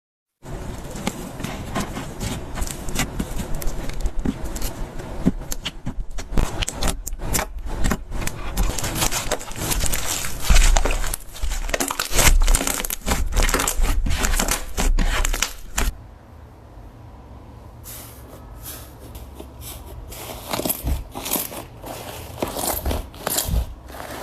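Slime being squeezed and poked by hand: a dense, continuous run of crackling, popping clicks that eases off for about two seconds around two-thirds of the way through, then picks up again.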